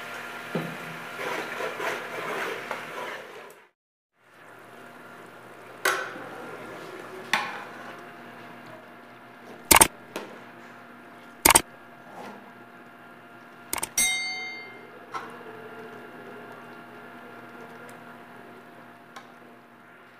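Metal ladle knocking against a metal cooking pot of chicken liver curry, about six sharp clanks, the last one ringing briefly, over a steady hum. A busier, noisier stretch in the first few seconds cuts off abruptly.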